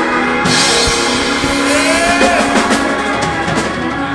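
A church band plays with a drum kit over steady held chords, with a bright crash about half a second in.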